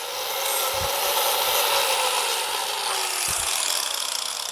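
Angle grinder with a PFERD Polifan Curve flap disc grinding a steel I-beam: steady grinding noise, with the motor's whine slowly dropping in pitch.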